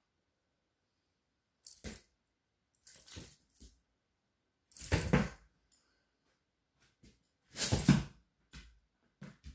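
Two dogs play-fighting: a few short bursts of dog noise, the loudest about five and eight seconds in, with a jingle of collar tags.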